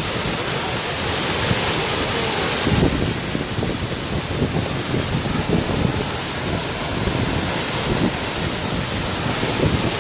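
Steady rushing of a mountain waterfall falling onto rocks.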